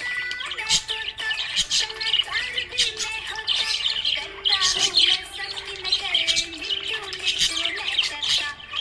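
Budgerigars chirping and chattering busily, fast sharp chirps overlapping continuously, with a steady tune running faintly underneath.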